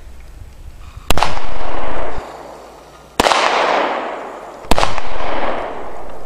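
Three handgun shots, about two seconds and then a second and a half apart, each followed by a long rolling echo that slowly dies away.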